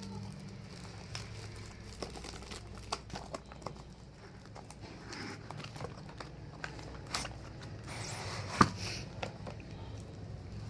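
Sealed earbud box packaging being cut and opened with a blade: plastic wrap crinkling and tearing, with scattered handling clicks and one sharp, loud click near the end.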